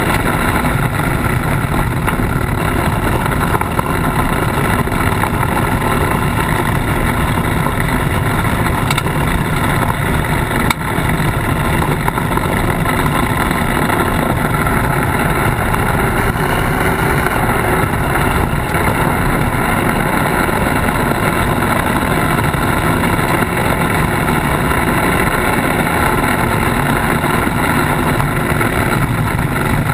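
Polaris RZR side-by-side running steadily at driving speed, heard close from its front bumper, with a dense rumble from the dirt and gravel track. One brief knock about eleven seconds in.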